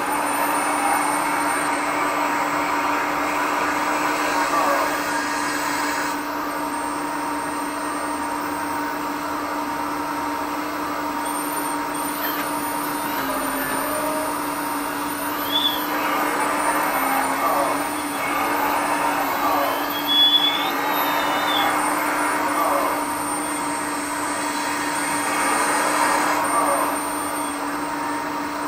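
Hydraulic pump and valves of an RC model excavator running steadily, a constant whine with hiss whose tone shifts as the boom and the rotating scrap grapple are worked. There are a couple of short louder sounds around the middle.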